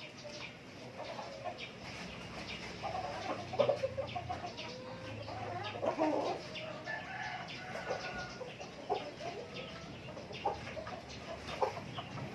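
A flock of native chickens clucking and calling, with scattered short pecks or scratches and some wing flapping.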